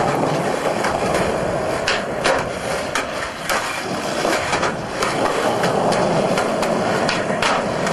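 Skateboard wheels rolling over rough concrete pavement: a steady gritty rumble with frequent sharp clacks.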